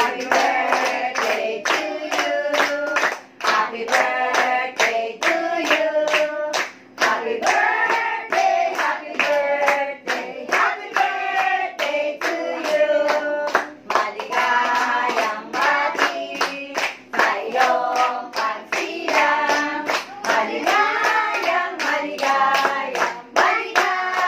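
A group of adults and children singing a birthday song together and clapping in time, about two claps a second.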